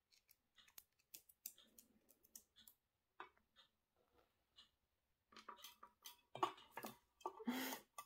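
A pet parrot moving about on a kitchen counter: scattered light clicks and taps of its claws and beak. In the last few seconds there is a louder cluster of knocks and scrapes as it climbs onto a metal coffee tin.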